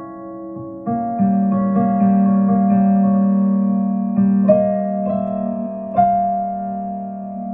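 Piano-type keyboard playing slow, sustained chords, with new chords struck about a second in, again at about four and a half seconds, and at six seconds, each left to ring.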